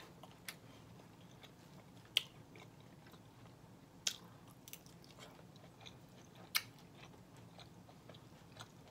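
A person quietly chewing a mouthful of collard greens, with a few sharp clicks, the loudest about two, four and six and a half seconds in, over a low steady hum.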